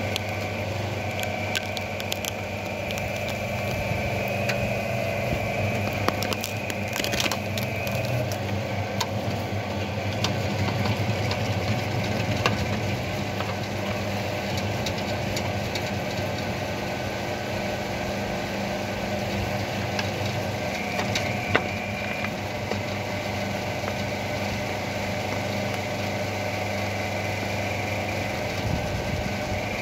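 Homemade electric mini excavator's hydraulics running with a steady hum and a higher whine over it at times, while its root-ripper attachment tears tree roots from the soil with cracks and snaps of breaking wood, several together and one sharp crack later on.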